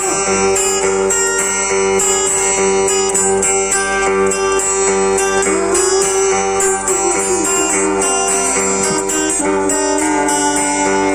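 Guitar playing a song, plucked and strummed over held notes, with a melody line that slides up and down in pitch around the middle.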